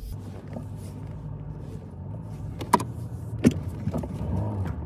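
Car engine running, heard from inside the cabin as a steady low hum, with two sharp clicks in the middle and a rising whine near the end as the car gets going.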